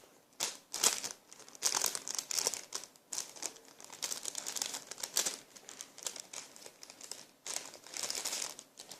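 Crinkly plastic packaging of a foam squishy toy being handled, crackling in repeated bursts.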